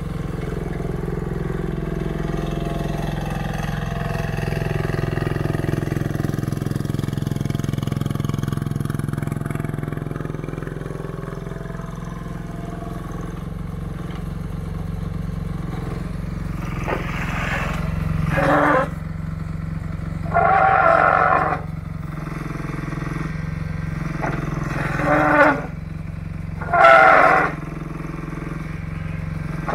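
A 1-ton mini excavator runs steadily. In the second half, four loud, harsh bursts of about a second each start and stop abruptly over the engine, as the machine's hydraulics are worked.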